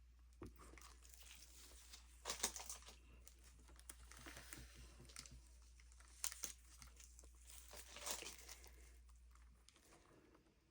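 Faint crinkling and rustling handling noises in a few short bursts, over a low steady hum that cuts off near the end.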